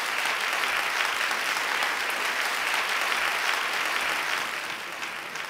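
Audience applauding, dense and steady, easing a little near the end.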